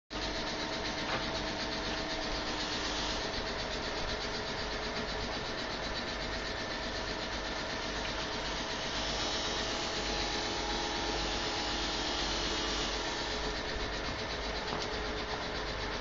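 Electric-motor-driven screw conveyor discharging charcoal from a biomass gasifier, running steadily with a hum and a few steady tones. Charcoal pieces scrape through the auger and pour out onto a pile with a gritty hiss that grows stronger in the middle.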